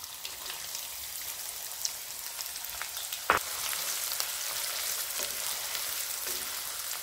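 Chopped onion sizzling as it fries in hot oil with cumin seeds in a kadhai, stirred with a wooden spatula; a steady crackling hiss that grows a little. One sharp tap about three seconds in.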